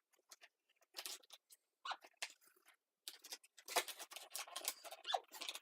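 Plastic and cardboard packaging being handled and opened: faint scattered clicks and rustles, growing into a busier crackling about three seconds in.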